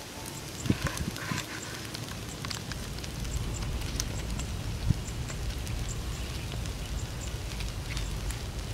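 Charcoal embers crackling with scattered small pops under a low rumble of wind on the microphone. A single sharp knock comes about five seconds in.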